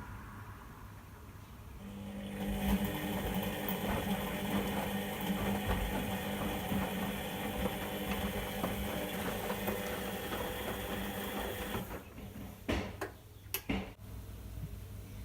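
Whirlpool washing machine on a 60° synthetics wash, its motor turning the drum: a steady whine starts about two seconds in and runs for about ten seconds. It then stops, with a few sharp clicks near the end.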